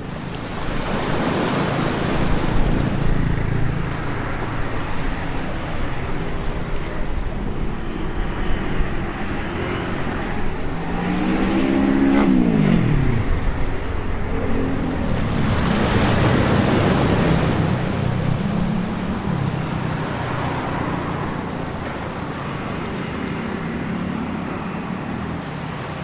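Small sea waves washing over shoreline rocks, with street traffic running behind. About halfway through, a vehicle passes and its engine note falls in pitch as it goes by.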